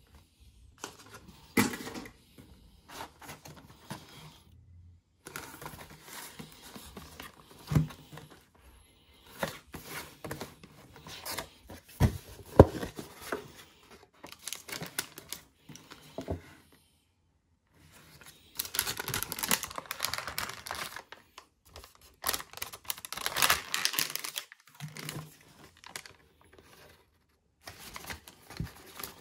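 Cookie packaging being handled and opened: scattered taps and knocks, the sharpest about halfway through, and two longer stretches of crinkling and tearing wrapping about two-thirds of the way in.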